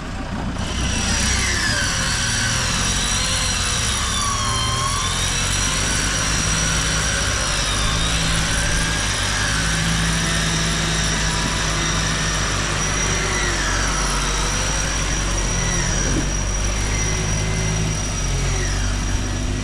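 Off-road 4x4 running, a steady low engine drone with a whine that rises and falls in pitch.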